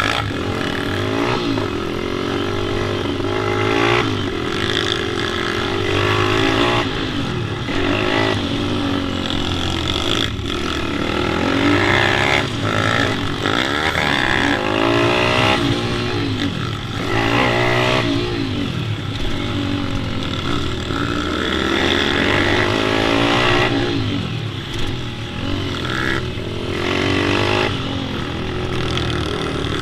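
Pit bike engine being ridden hard round a track, its pitch rising and dropping again and again as it accelerates and shifts or backs off.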